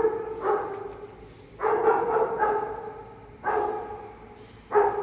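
Bernese mountain dog barking in a steady series, a bark or two about every second and a half: a search-and-rescue dog's bark alert, staying on a found hidden person.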